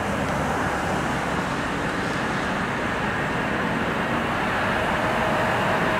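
EP20 dual-system electric locomotive hauling a double-deck passenger train on its approach: a steady rumble of wheels on rail that grows slowly louder. A faint steady whine joins near the end.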